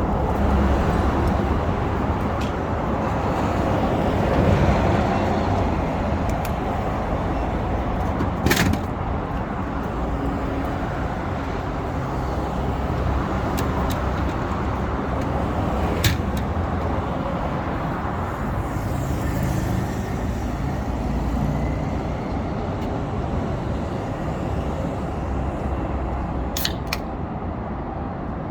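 Road traffic on a city street, a steady rumble of passing cars and buses. A few short sharp knocks stand out, about a third of the way in, near the middle and near the end.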